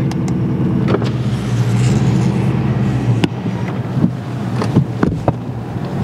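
Pickup truck driving on a snowy road, heard from inside the cab: a steady low engine and road drone, with a few short sharp clicks or knocks, several of them close together near the end.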